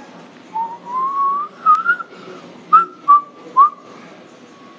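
A person whistling: a slow rising whistle, two quick chirps, then three short, sharp whistled notes.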